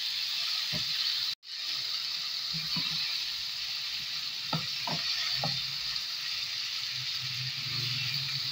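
Bone-in meat, tomatoes and spices sizzling in oil in a nonstick wok, with a wooden spoon stirring and now and then knocking or scraping against the pan. The sound drops out for an instant a little over a second in.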